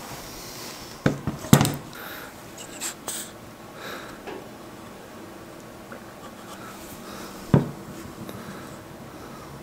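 Cedar boards being handled on a wooden workbench: a few sharp wooden knocks, the loudest about a second and a half in and again about seven and a half seconds in, with light rubbing and tapping between.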